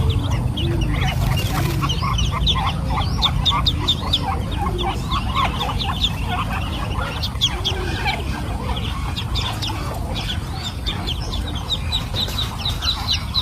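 A flock of birds calling all at once, many short high chirps overlapping without a break, over a steady low rumble.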